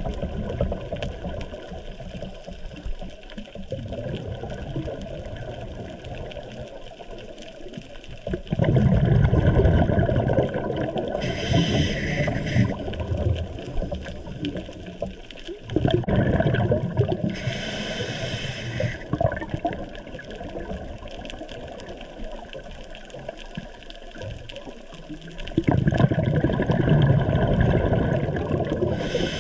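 Scuba diver breathing through a regulator underwater: exhaled bubbles burble for a few seconds, then the regulator gives a short hiss on the inhale. This happens three times, about eight seconds apart, with a quieter watery rush in between.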